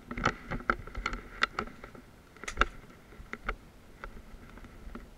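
Irregular sharp cracks and clicks, several in close pairs, of footsteps and handling as a person pushes through brush and rubble, snapping twigs and debris.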